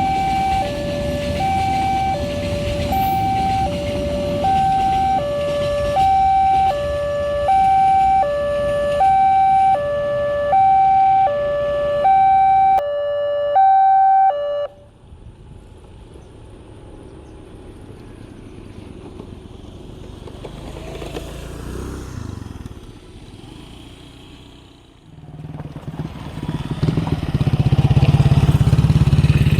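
Railway level-crossing warning alarm through a horn loudspeaker: a slow two-tone siren, high and low tones alternating with one pair about every two seconds, over a low rumble, sounding while a train is due or passing. It cuts off suddenly about halfway through. Near the end a motor vehicle's engine grows loud.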